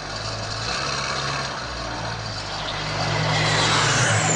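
Twin-engine propeller plane flying low overhead, its engine and propeller noise growing louder as it approaches, with a high tone beginning to fall in pitch near the end.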